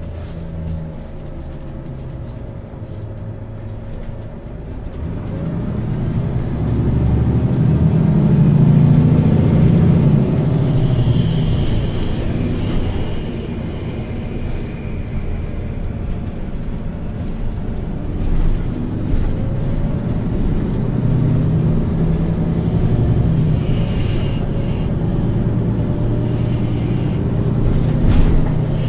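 MAN Lions City Euro 6 city bus engine accelerating under load with a rising whine as it gathers speed. This happens twice: a first surge building from about five seconds in, and a second from about eighteen seconds in.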